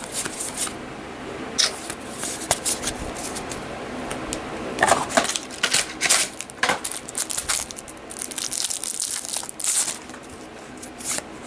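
Trading cards and booster-pack wrapping being handled: an irregular run of rustling, sliding and crinkling with short sharp clicks, busiest in the middle and again near the end.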